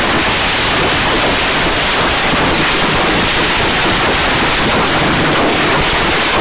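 Fireworks going off indoors all at once: a loud, steady wall of crackling and hissing with no separate bangs standing out, and a faint falling whistle about two and a half seconds in.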